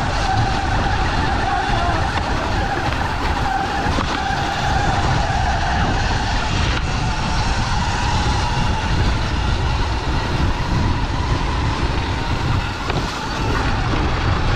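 Sur-Ron electric dirt bike riding along a dirt trail: the electric motor whines steadily, its pitch wavering slightly with speed, over a heavy rumble of wind on the microphone.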